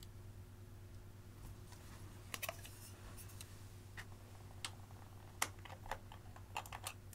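Scattered light clicks and taps of plastic makeup packaging being handled: an eyeshadow palette, then a lip balm tube. The sharpest click comes about five seconds in and a quick cluster comes near the end, over a faint steady low hum.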